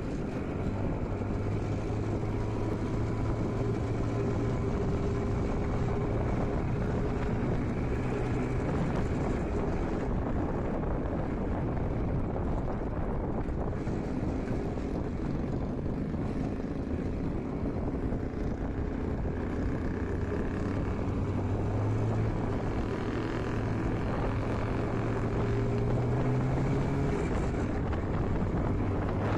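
IZh Jupiter-5 motorcycle's two-cylinder two-stroke engine running steadily at an even pitch, a little louder in the last third. The engine has a knock and a ringing that the owner takes as a sign it needs a rebuild.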